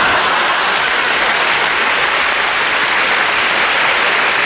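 Studio audience applauding, a loud steady wash of clapping.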